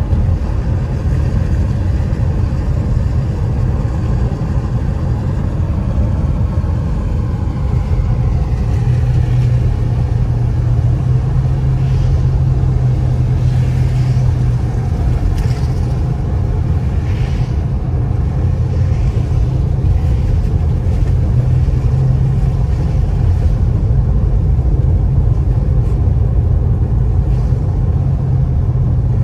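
Car driving on a wet road, heard from inside the cabin: a steady low rumble of engine and tyres, with a few brief hissing swells in the middle.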